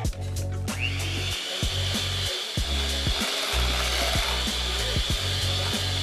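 Electric mixer starting up about a second in and then running steadily with an even whine, beating cake batter, over background music with a steady beat.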